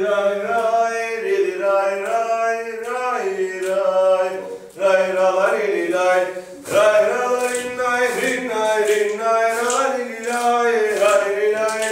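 Zeybek folk dance music playing: a melody over a steady low drone, dipping briefly twice midway before carrying on.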